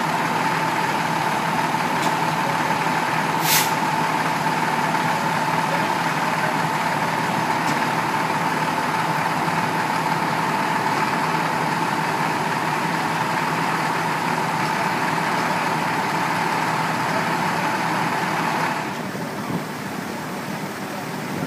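Fire truck's diesel engine running steadily, with a constant high whine over it. The whine stops and the engine noise drops lower near the end.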